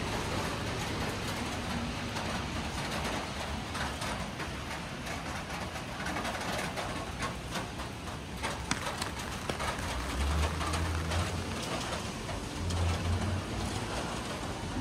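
Steady rain hiss with many scattered sharp drip taps. A low hum comes in twice in the last few seconds.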